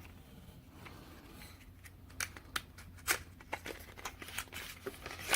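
Scattered light clicks, taps and rustles of a small cardboard product box being handled and opened by hand, coming more often after about two seconds.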